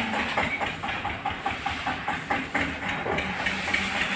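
Long-handled scrubbing brush and grass broom swishing and scraping floodwater and mud across a wet concrete floor, a rhythmic wet swish of about three to four strokes a second.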